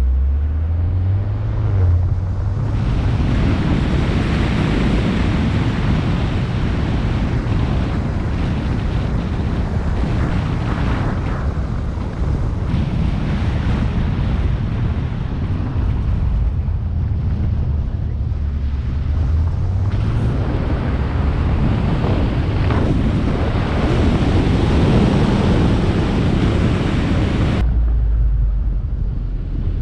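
BMW car being driven on a track: the engine drones and rises and falls in pitch as the car speeds up and slows, under heavy rushing wind and tyre noise. Near the end the rushing hiss cuts off suddenly, leaving a low drone.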